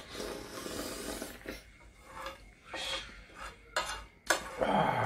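Metal spoon scraping and clinking against a ceramic plate as the last of the lamb broth is scooped up and sipped. There are several short clinks, the sharpest about four seconds in, and a louder, longer scrape near the end.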